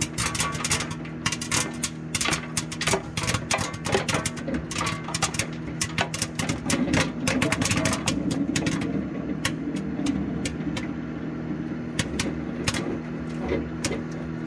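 Popcorn kernels on a whole ear of corn popping inside a running microwave oven over its steady hum. The pops come thick and fast at first and thin out after about nine seconds, the popping slowing as it nears its end.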